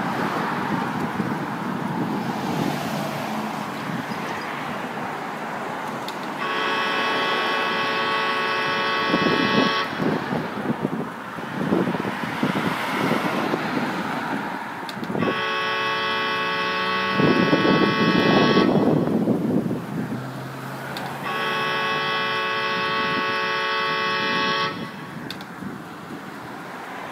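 A vehicle horn sounding three long, steady blasts of about three seconds each, several seconds apart, over a constant rumble of traffic and engines.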